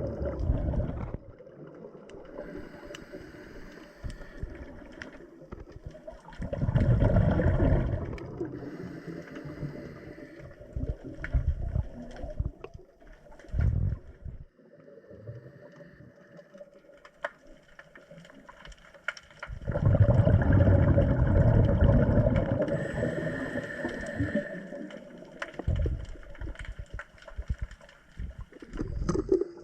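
A scuba diver's exhaled air bubbling and gurgling underwater in several rumbling bursts, the longest lasting a few seconds about twenty seconds in. Scattered sharp clicks come between the bursts.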